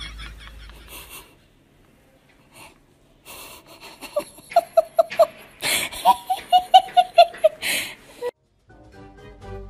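A person laughing hard in two runs of quick, repeated "ha"s, with wheezing gasps for breath between them.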